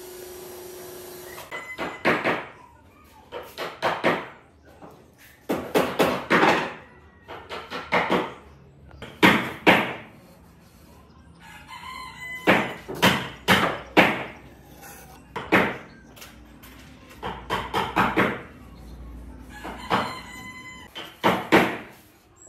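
A thin wooden stick scraping along the edge of a pine board as glue is spread on it, in about a dozen separate rasping strokes of roughly a second each. The scraping is preceded by a short steady hiss that stops about a second and a half in.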